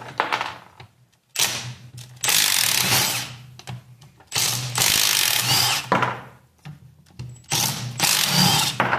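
Cordless impact wrench running in three bursts of about one and a half to two seconds each, driving bolts out of a T5 manual transmission case.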